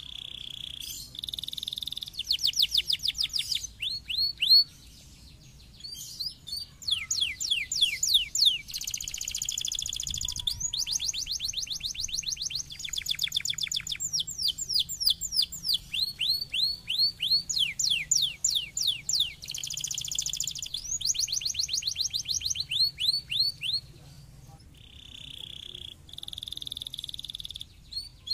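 Domestic canary singing a long song of fast trills, each a rapid run of repeated falling high notes, alternating with buzzy held notes, with brief pauses about five seconds in and again near the end.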